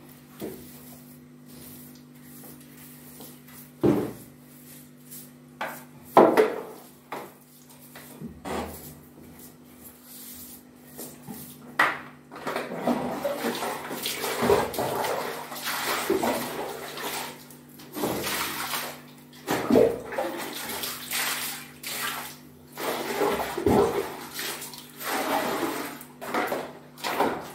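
A tiled bathroom floor being washed by hand: water splashing and sloshing as a wet cloth scrubs the tiles, with a few knocks as the bucket and brush are handled, over a steady low hum. The splashing picks up about halfway through.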